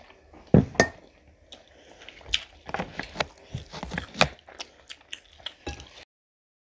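Close-miked eating sounds: chewing, lip smacks and wet squishing as rice and curry are eaten by hand, heard as a run of short sharp clicks at uneven intervals. The sound cuts out completely about six seconds in.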